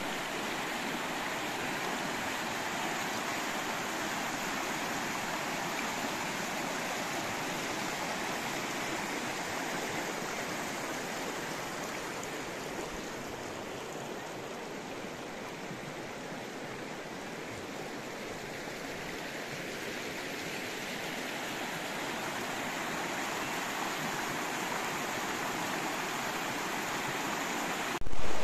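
Stream water rushing steadily, a little softer midway, with a brief loud burst at the very end.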